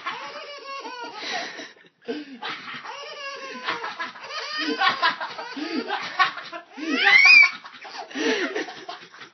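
Baby laughing in repeated breathless fits, with a loud rising squeal about seven seconds in.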